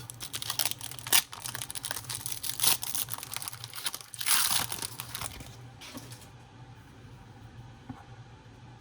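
Plastic wrapper of a trading card pack crinkling and tearing as it is ripped open, with a longer, louder rip about four seconds in; the crinkling dies down after about six seconds.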